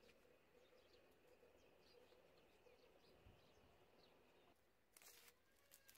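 Near silence: faint outdoor background with scattered faint high chirps, and a short burst of noise about five seconds in.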